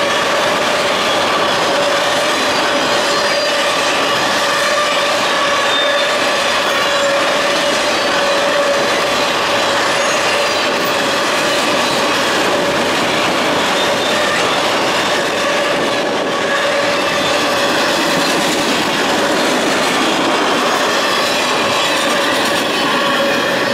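Enclosed autorack freight cars rolling past on steel wheels: a steady, loud noise of wheels on rail with a steady high squeal held over it throughout.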